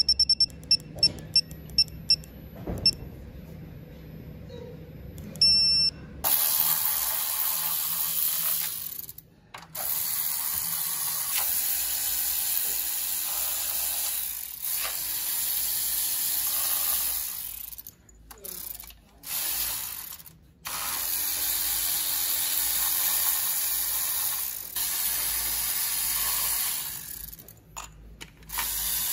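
Gearwrench 120XP digital torque wrench beeping in a quick series of short high beeps as the set torque is reached, the beeps spacing out and stopping within about three seconds. After that a steady hiss sets in, broken by a few short gaps, with faint clicks of the wrench's ratchet as bolts are tightened.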